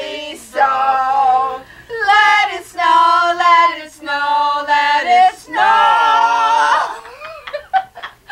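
A small group of people singing together without accompaniment, women's voices most prominent, in about five held phrases, the last one the longest and wavering, after which the singing breaks off.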